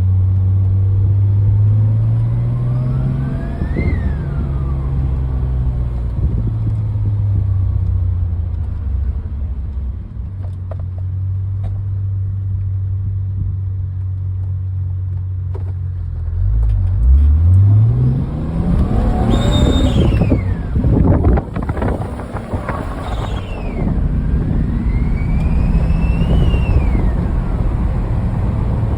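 Turbocharged BMW M30B35 straight-six idling and revved several times, with the blow-off valve's added whistle sounding a loud tone that rises and falls in pitch on each rev. The biggest rev comes about halfway through.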